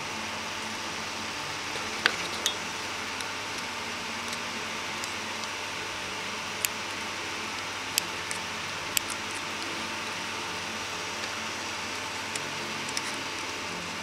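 A handful of sharp, brief metal clicks and taps, spread out, from a small steel pick tool working in the piston bores of a Honda CBR1100XX brake caliper, over a steady background hiss.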